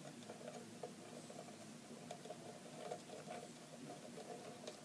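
Faint small ticks and scratches as an antenna is screwed by hand onto the threaded connector on the side of a small plastic network box, over a faint steady hum.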